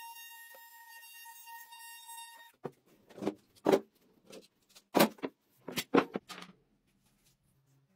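DeWalt compact router running with a steady high whine, cutting off suddenly about two and a half seconds in. It is followed by a string of about nine sharp wooden knocks as the routed workpiece is lifted and set about on the bench.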